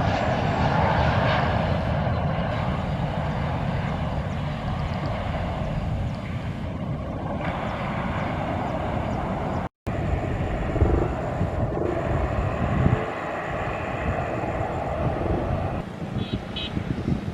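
Jet airliner engines, a steady roar that slowly fades as the aircraft moves away. It breaks off abruptly about ten seconds in, and a fainter rumble with wind noise follows.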